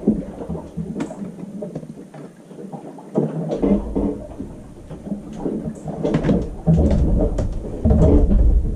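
Weak, broken VHF marine radio reception over the cabin speaker: a distant station's reply breaking up into static and crackle, with the voice lost in the noise, the sign of a signal at the edge of range.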